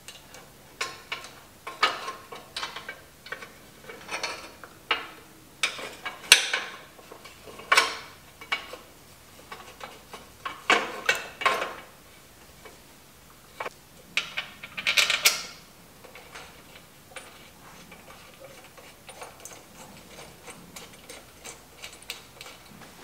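Metal clinks and clicks of parts and hand tools being fitted at the lower end of a Honda CB750's front fork leg. The clinks come in irregular clusters, some briefly ringing, and thin out to faint ticks after about sixteen seconds.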